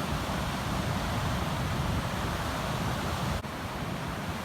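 Steady rushing noise of ocean surf and wind buffeting the microphone on the beach, with a brief break about three and a half seconds in.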